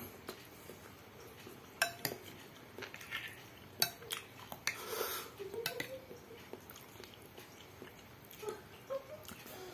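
Metal spoon clinking against a glass bowl of soupy instant noodles as it stirs and scoops, a handful of sharp clinks spread out, with soft chewing between them.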